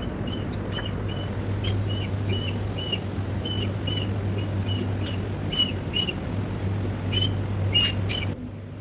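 Steady low hum, like a motor or fan, under short high-pitched chirps or squeaks that repeat two or three times a second. Both drop away suddenly near the end.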